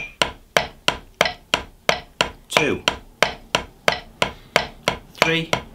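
Wooden drumsticks striking a drum practice pad in a single stroke roll, alternating right and left hands in even eighth notes at 90 BPM, about three strokes a second.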